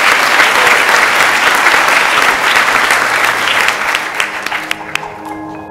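Audience applauding, loud and dense, then thinning to a few separate claps and fading out near the end as soft music comes in.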